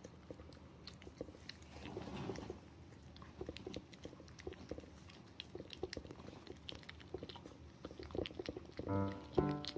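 A Pomeranian eating from a plate, with many small irregular bites, crunches and chewing sounds. Near the end a few notes of music begin.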